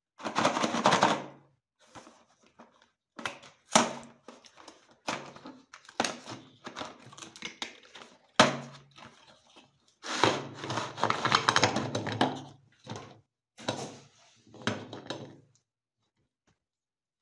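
A cardboard cookie box being handled and opened by hand: irregular rustling and scraping of cardboard and packaging with several sharp knocks, and a longer spell of rustling about ten seconds in.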